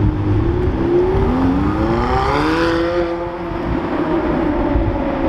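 McLaren 720S's twin-turbo V8 accelerating hard away, its engine note climbing in pitch and dropping back several times as it shifts up through the gears.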